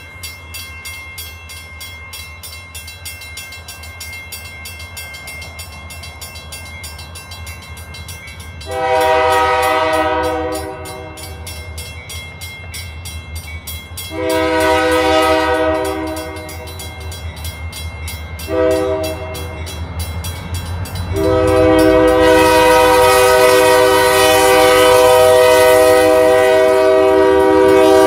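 Diesel locomotive air horn sounding the grade-crossing signal: two long blasts, a short one, then a long blast held as the engine reaches the crossing. Crossing bells ring rapidly at the start, and a low diesel rumble grows under the last blast as the locomotives come by.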